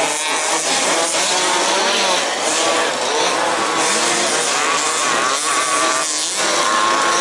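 Several 1/5-scale RC off-road race cars' small two-stroke petrol engines revving up and falling back as they race around the track, their rising and falling pitches overlapping.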